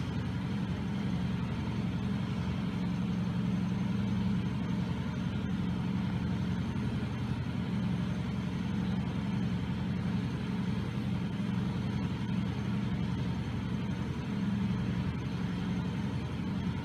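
A steady, low machine hum that runs on without change.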